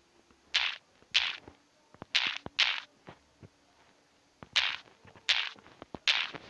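Key-press sounds from typing on a smartphone's on-screen keyboard: seven short, sharp tap sounds at an uneven pace, one for each letter typed.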